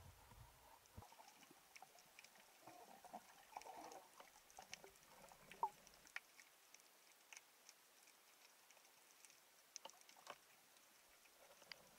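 Near silence underwater, broken by sparse faint clicks and ticks.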